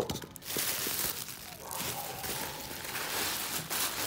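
A plastic bag rustling and crinkling in irregular spells as it is handled, after a short knock at the very start.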